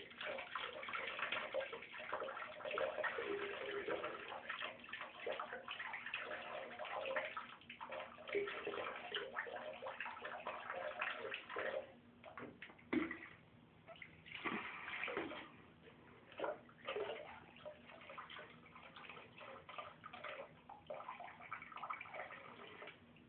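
Water in a shallow bathtub with a kitten in it: a steady rush of water for about the first twelve seconds, then quieter, broken-up splashes and sloshing.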